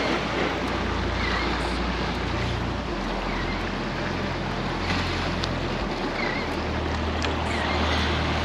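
Wind blowing on the microphone over waves washing against jetty rocks: a steady rushing noise with an uneven low rumble, and a few faint high chirps.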